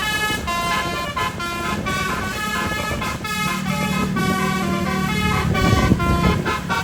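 Bus telolet horn, a set of twelve roof-mounted trumpets driven by a tune module, playing a fast melody of several tones at once that step up and down in pitch. A low steady drone joins under it about three seconds in.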